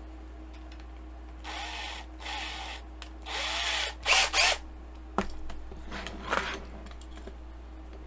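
A small drill run in four short bursts, its motor speeding up and slowing each time, as it drills out the rivets of a 1:64 diecast car's base. Then come a couple of sharp knocks.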